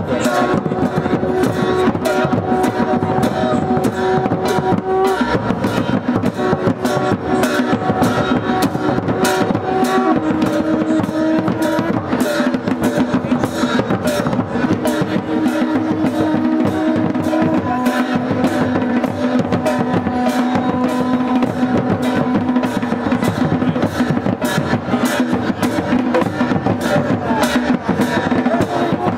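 Procession band playing: fast, steady drumming with long held brass horn notes over it, the notes shifting pitch every few seconds.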